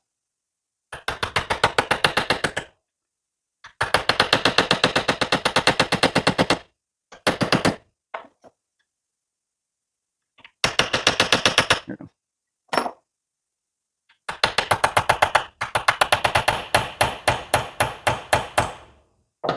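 Rapid mechanical hammering in repeated bursts, about ten blows a second, from a power tool driving at a stuck press-in steel-caged wiper seal to work it loose. The longest burst is near the end.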